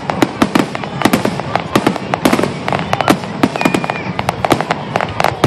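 Fireworks finale barrage: rapid, loud bangs of aerial shells bursting, several a second with no let-up.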